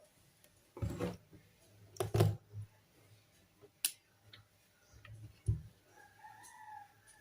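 A few scattered knocks and clicks, as of the fan and its wiring being handled, then a faint short pitched call near the end.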